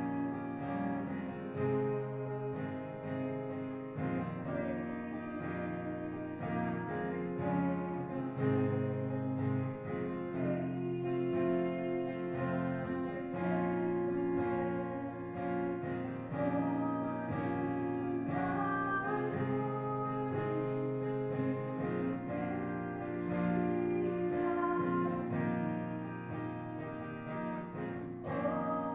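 Music led by a strummed acoustic guitar, with sustained chords.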